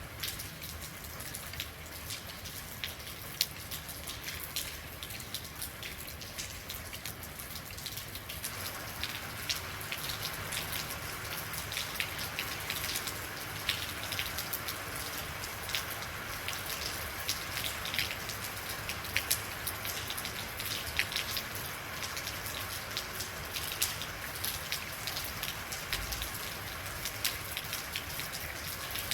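Real rain falling steadily, with many separate drops striking close by as sharp little ticks over an even hiss; the rain grows a little heavier about eight seconds in.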